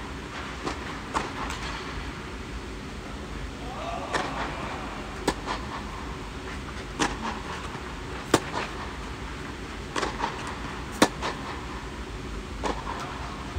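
Tennis rally: a string of sharp racket-on-ball hits and ball bounces, about one to two seconds apart, over a steady low hum.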